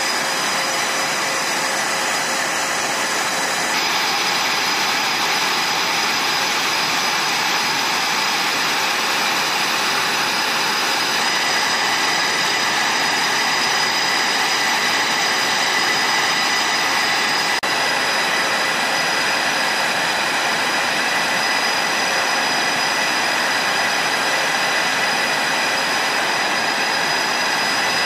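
Twin-engine fighter jets running on the flight line: a steady jet rush with a high turbine whine in several held tones. The tone shifts slightly about four seconds in and again a little past the middle.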